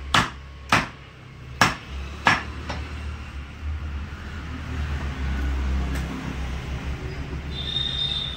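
A heavy cleaver chopping goat mutton on a wooden log chopping block: four sharp chops in the first two and a half seconds, then a pause filled by a steady low rumble, with a faint high whine near the end.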